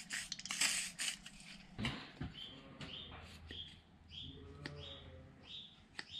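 A brief aerosol spray hiss near the start, then rusty, bound-up circlip pliers being worked open and shut, their pivot giving a series of short squeaks about twice a second as the freshly applied penetrating lubricant works in.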